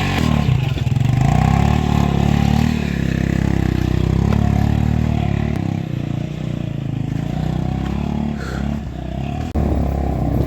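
Motorcycle engine running, its revs rising and falling repeatedly.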